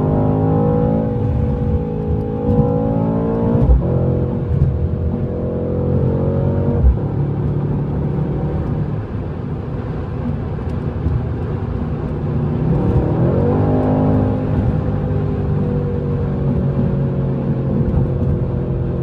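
Stock Mercedes-AMG C63 S engine under hard acceleration: its pitch climbs, then drops suddenly with a thump at an upshift about four seconds in and again about seven seconds in. It settles into a lower steady drone, climbs again under throttle around thirteen seconds in, then eases off.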